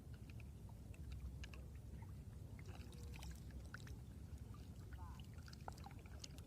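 Faint water sloshing and lapping over a steady low rumble, with scattered small clicks.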